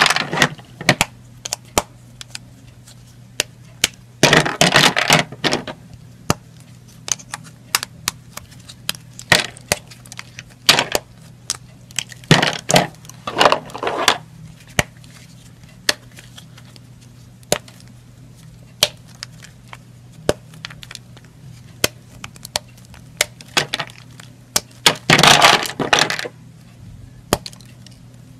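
Thin slabs of bar soap being snapped and crushed by hand: sharp cracks scattered throughout, with longer bursts of crunching about four seconds in, around twelve to fourteen seconds, and again near the end. A faint low hum sits underneath.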